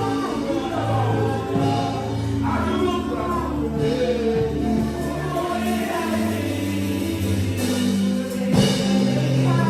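Gospel music with a choir singing over sustained chords.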